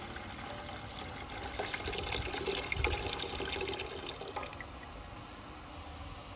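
Water poured from a glass jug into a metal pot of rice and broth, splashing into the liquid; the pour grows louder toward the middle and stops about four and a half seconds in.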